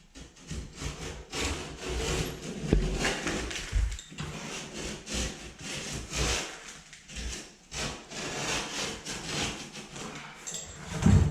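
Utility knife cutting through drywall, the blade dragged through the paper face and gypsum in a series of irregular rasping strokes, trimming away loose edges.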